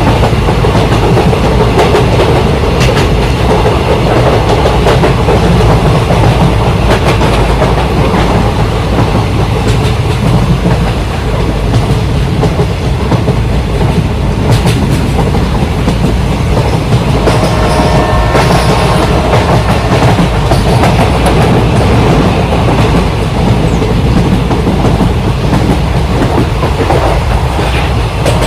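Train running along rails with a steady clickety-clack of wheels over the track, and a short held tone sounding about two-thirds of the way through.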